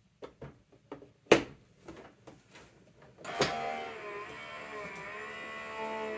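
A few clicks and a sharp knock, the loudest about a second in, then a little past three seconds an electric die-cutting machine's motor starts and runs steadily with a whine, feeding the papers and die through its rollers.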